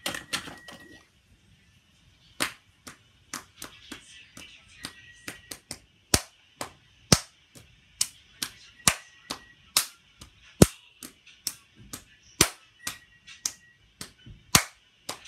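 A child's hands clapping and slapping in a steady rhythm of about two sharp smacks a second, starting about two seconds in.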